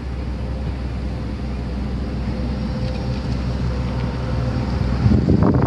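A Fleetwood Southwind motorhome's engine rumbling as the coach drives slowly past at close range. It grows louder toward the end as it comes alongside.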